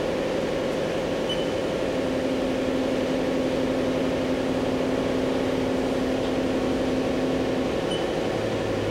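Haas EC-400 horizontal machining center's full fourth-axis rotary table turning the pallet: a steady motor whine sets in about two seconds in and stops near the end, over the machine's constant running hum. A lower hum starts just before the end.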